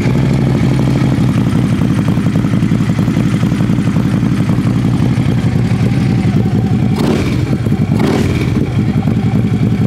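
Harley-Davidson Road Glide CVO's 110 cubic-inch V-twin running steadily at idle with a loud, even low pulsing, just after a fuel filter change. Brief rushes of noise come about seven and eight seconds in.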